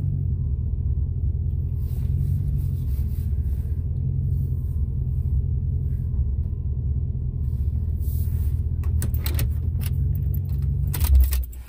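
Steady low rumble heard from inside a Lincoln Town Car's cabin. Near the end come a few clicks and rattles and a thump, and then the rumble stops abruptly.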